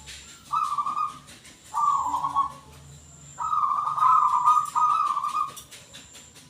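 Zebra dove (perkutut) cooing: several short trilled coo phrases with brief pauses between them, the last one longest.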